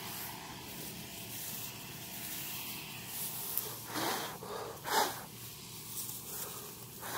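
Steady outdoor hiss, with short close rustles about four and five seconds in and dry wheat straw stubble rustling as a hand pushes into it near the end.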